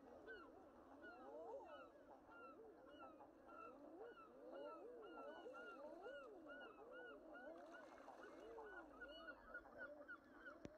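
Faint chorus of many animals calling at once: short overlapping calls that each rise and fall in pitch, without a break.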